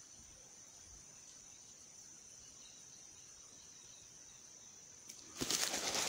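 Faint, steady, high-pitched chirring of insects in the background. About five seconds in, a much louder rush of noise cuts in and runs on.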